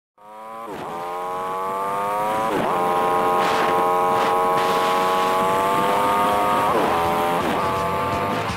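Kawasaki Vulcan 800 V-twin motorcycle engine and ride noise played back at four times speed, so the engine note sits unnaturally high. It fades in at the start, then holds steady, with its pitch dipping sharply and recovering about four times.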